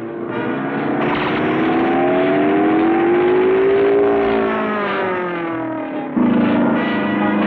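Cartoon sound effect of a biplane's propeller engine droning, its pitch rising and then falling as it flies past; about six seconds in it suddenly jumps louder to a steady drone.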